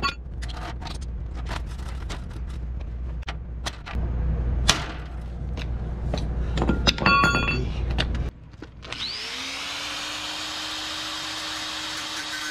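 Repeated hammer blows on a rusty steel table frame, with a metallic ring on one strike near the middle. About nine seconds in, an electric angle grinder starts, spins up and runs steadily, grinding the steel.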